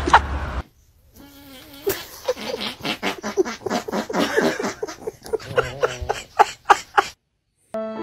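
A dog's quick run of short grunts and whimpers. Violin background music starts right at the end.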